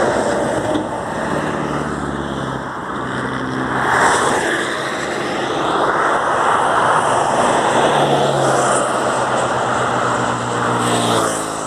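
Highway traffic going by: cars and trucks passing in waves of tyre and wind noise, with the steady engine hum of a heavy truck, a semi-trailer, passing late on.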